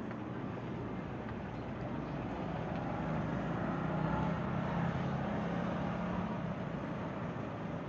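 City street traffic, with a vehicle's low engine hum growing louder in the middle and fading again near the end.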